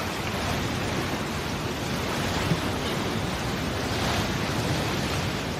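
Storm at sea: a steady rush of heavy rain, wind and crashing waves, beginning to fade near the end.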